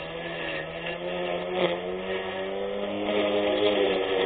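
A 24V brushless electric lawn mower motor running under load, a steady whine whose pitch wavers slightly and dips briefly near the end.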